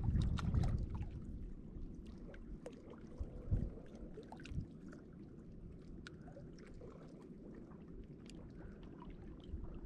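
Wind rumbling on the microphone, loudest in the first second, with small waves lapping against the shoreline rocks and scattered faint clicks. Two short knocks come about three and a half and four and a half seconds in.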